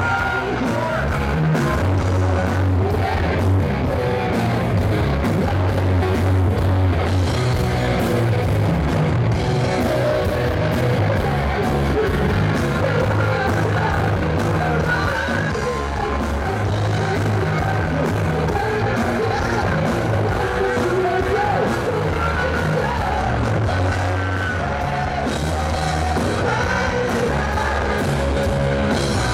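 Live rock band playing: electric guitars, bass and drums, with the lead singer singing over them.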